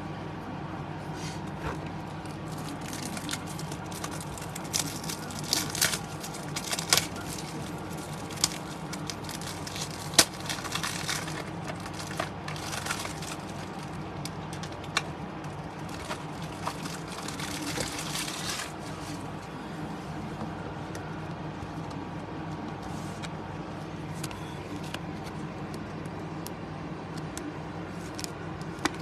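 Crinkling of foil trading-card pack wrappers and light clicks of cards being handled, over a steady low hum. The handling noise dies away about two-thirds of the way in.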